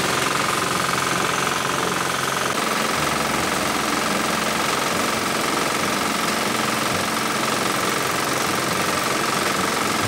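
Engine-driven rice thresher running steadily as rice stalks are fed into it, a dense, even machine noise with a steady high whine over it.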